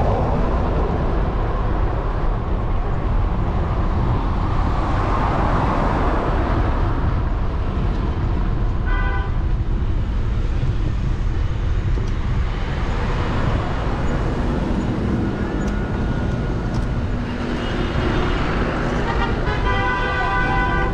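City street traffic heard from a moving bicycle: cars passing over a steady low rumble of wind and road noise. A short horn toot sounds about nine seconds in, and people's voices rise near the end.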